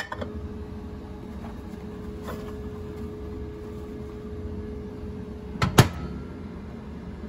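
Microwave oven door being handled, with a sharp click at the start and the door shutting with a loud double clack near the end, over a faint steady hum.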